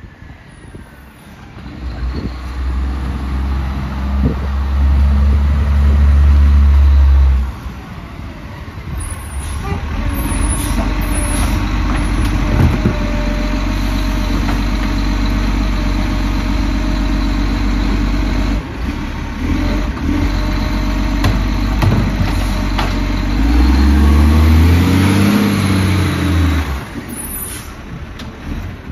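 Iveco side-loader garbage truck's diesel engine, loud as the truck pulls up, then running steadily with a thin whine while the automated arm reaches out for a wheelie bin. About 23 seconds in, the engine revs up and back down as the arm lifts and tips the bin.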